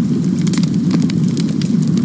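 Campfire burning: a steady low rumble of the flames with frequent small, sharp crackles and pops of the burning wood.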